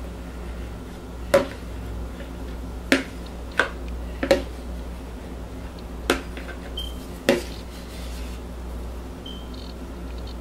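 A spatula knocks and scrapes against a plastic pitcher while thick cold-process soap batter is poured from it into a silicone loaf mold. About six sharp clicks come at uneven intervals over a low steady hum.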